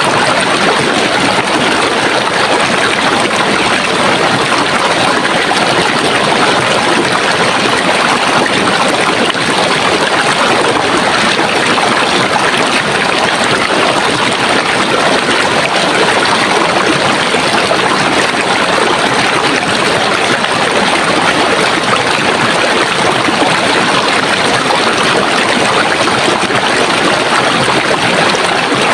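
Running water of a stream flowing steadily, an even, unbroken rush.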